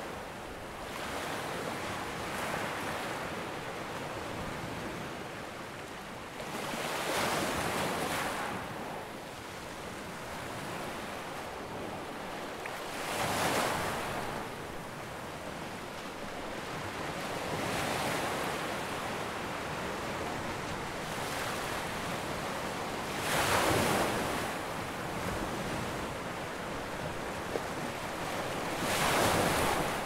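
Ocean surf washing onto a beach: a steady hiss of water with a louder wave surging in about every five to six seconds.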